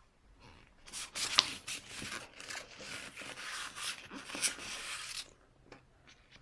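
Paper rustling and crackling for about four seconds, starting about a second in, as the pages of a picture book are handled and turned.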